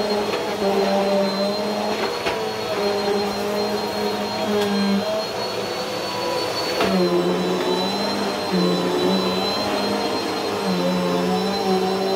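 Bissell Helix upright vacuum cleaner running on a rug: a steady motor hum with a thin high whine. The tone shifts a little about halfway through as the machine is tipped back and pushed.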